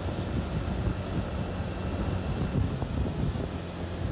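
Motorbike engine running steadily while riding, with wind buffeting the microphone in irregular gusts.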